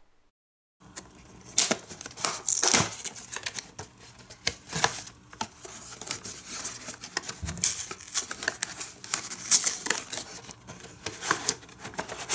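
Cardboard toy box being opened by hand and its packaging pulled out: irregular rustling, scraping, crinkling and clicks of cardboard and plastic. It starts after about a second of dead silence.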